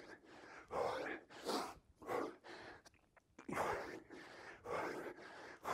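A man breathing hard from exertion during press-ups: a series of short, forceful breaths, about one a second, with a brief pause near the middle.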